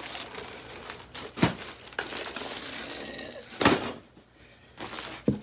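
Plastic packaging crinkling and rustling as chair parts are unpacked, broken by three sharp knocks, the loudest a little past the middle.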